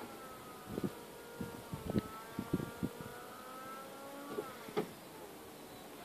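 Opel Astra H TwinTop's folding hard-top mechanism running as the roof opens by remote: a steady electric motor whine that shifts in pitch about four and a half seconds in, with a string of clicks and clunks as the latches release and the boot lid lifts.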